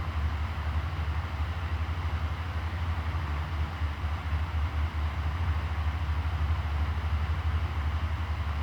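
Electric fan running steadily: a low motor hum under an even rush of air, with a slight rapid flutter.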